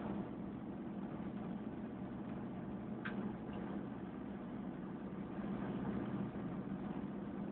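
1984 Ford F-250's 6.9-litre V8 diesel running at a steady cruise, heard from inside the cab, with tyre noise from the chip-seal road surface. A brief click about three seconds in.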